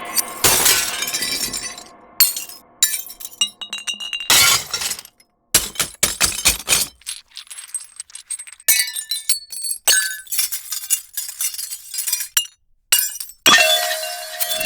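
A run of separate broken-glass sound effects: glass smashing and shattering, with shards clinking and ringing, one clip after another. Each cuts off abruptly, with brief silent gaps between some.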